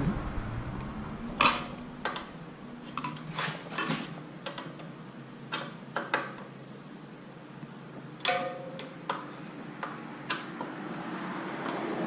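Scattered metallic clicks and taps from tools and parts of a bicycle's front brake being adjusted, about a dozen at irregular intervals, with a short ringing tone after one click about eight seconds in.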